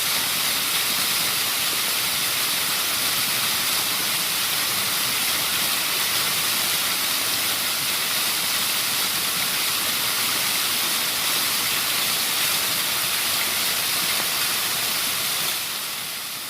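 Waterfall rushing steadily as an even hiss of falling water, fading down near the end.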